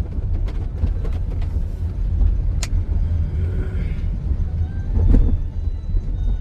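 Steady low rumble of road traffic, with scattered light ticks and a slight swell about five seconds in.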